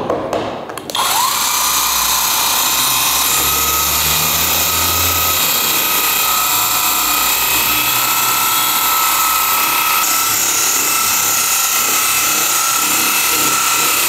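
Cordless mini dual-action polisher starting up about a second in with a short rising whine, then running steadily while its small foam pad works polish over car paint. It stops near the end.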